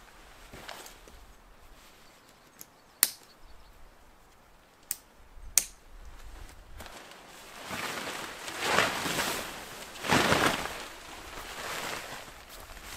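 Three sharp clicks as the tent's inner is clipped onto its poles, then tent fabric rustling in two loud swells as the flysheet is shaken out and thrown over the tent.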